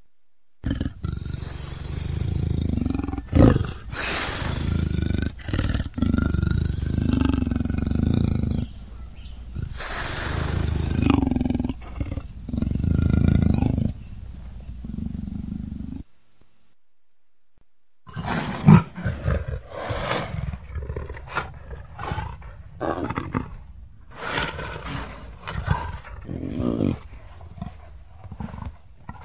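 Big cat roaring and snarling: long, loud calls for the first half, a pause of a couple of seconds, then a run of shorter, choppy calls.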